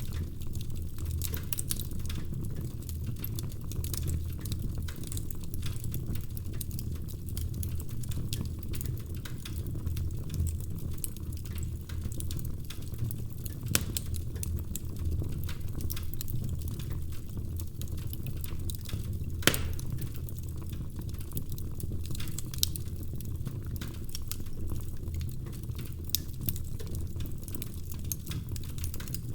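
Burning firewood in a fireplace crackling, with a steady low rumble of the fire and frequent small pops. Two louder sharp pops come about halfway through and again about two-thirds in.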